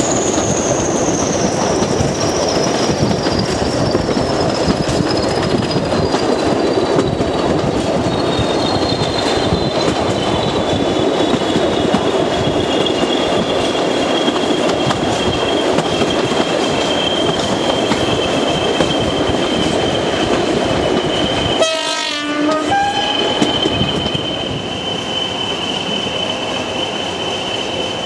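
Two English Electric Class 20 diesel locomotives, 20118 and 20227, working hard in tandem at the head of the train, heard from a carriage behind them together with the clatter of wheels over rail joints. A high whistle slowly falls in pitch over the first twenty seconds; about 22 seconds in there is a brief break in the sound, and afterwards it is a little quieter.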